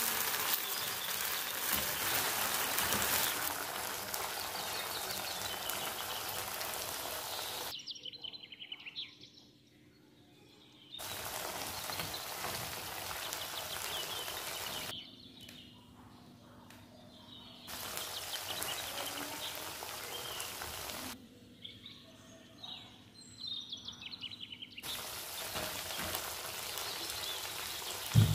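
Sweet and sour sauce sizzling in a frying pan, a steady hiss that drops away three times for a few seconds. Faint bird chirps come through in the quieter stretches, and a short thump sounds near the end.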